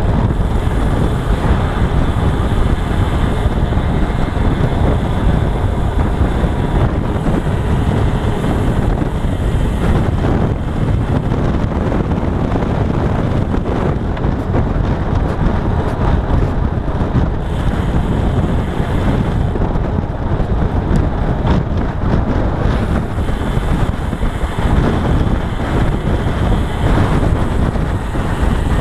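Steady loud wind rush buffeting the microphone of a handlebar-mounted camera on a road bike riding at speed.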